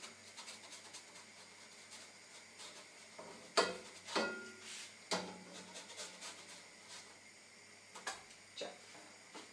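Spatula scraping and knocking against a frying pan as pancakes are turned: a few short, faint scrapes and taps, a cluster about three and a half to four seconds in, another around five seconds, and two more near the end.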